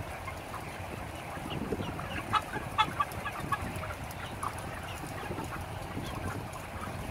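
A crowded flock of 35-day-old broiler chickens clucking, many short calls overlapping, with a few louder calls between about two and three and a half seconds in, over a steady low background noise.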